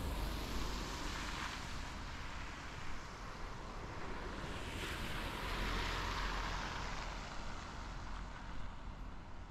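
Outdoor street noise: the hiss of passing traffic's tyres on a snowy road, swelling twice as vehicles go by, over a low rumble.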